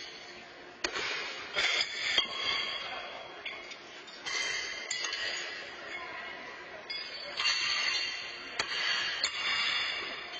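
Pitched horseshoes striking steel stakes and each other: a series of sharp metallic clanks, each ringing on briefly and echoing through a large hall.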